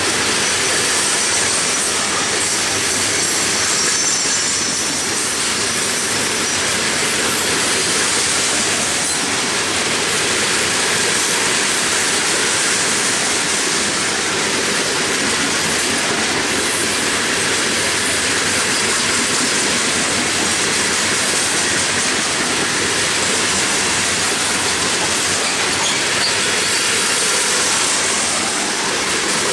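Freight train of hopper cars rolling past close by: a steady rush and rumble of steel wheels on rail, with a faint high wheel squeal about four to eight seconds in.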